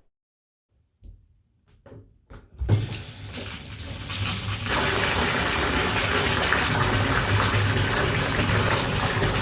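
Tap water running into a bathtub: a few faint knocks, then the water starts almost three seconds in and runs steadily.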